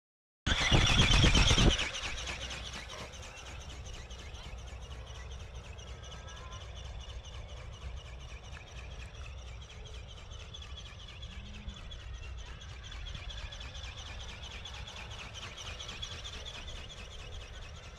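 Outdoor ambience: birds chirping over a steady hiss of wind on the microphone, opened by a loud burst of noise lasting about a second.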